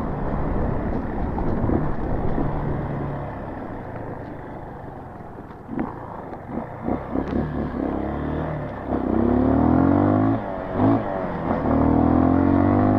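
Single-cylinder four-stroke dirt bike engine running as it is ridden: it eases off to a lower, quieter note about four seconds in, with a few knocks, then opens up again with rising pitch from about nine seconds in and once more near the end.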